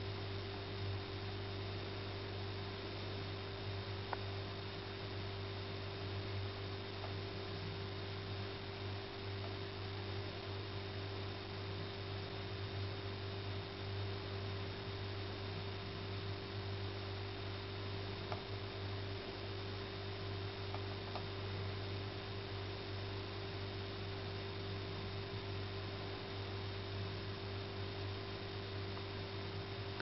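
Steady low electrical hum with an even hiss over it, unchanging throughout. There are a few faint ticks, one about four seconds in and a couple more later on.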